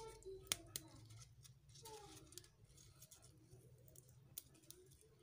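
Faint, sharp snaps of eboo (cowpea) leaf stalks being pinched off the stems by hand, a few at irregular moments, over a low steady hum.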